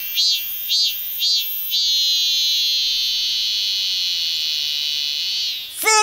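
Song of a chammaemi cicada (Hyalessa fuscata). It is a string of short pulsed calls, nearly two a second, that runs into one long steady buzz, which stops shortly before the end.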